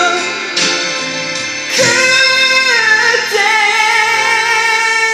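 A man singing a Korean ballad into a handheld microphone over instrumental accompaniment. He holds a long high note with vibrato from about two seconds in until near the end.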